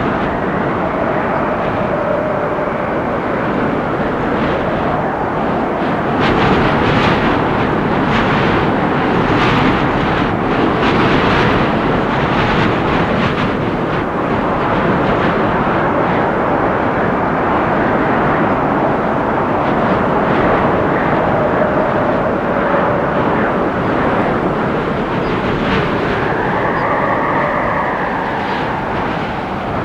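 Windstorm gusting through forest trees: a steady rush with faint whistling tones that rise and fall, and a short run of crackly rustling partway through.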